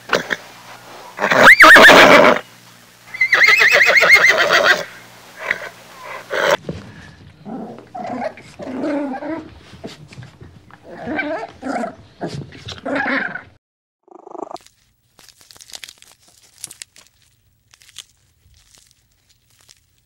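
A horse neighing loudly, two long whinnies within the first five seconds, the second with a shaking, quavering pitch. About seven seconds in, a dog makes a run of softer short calls in groups, which stops after about thirteen seconds.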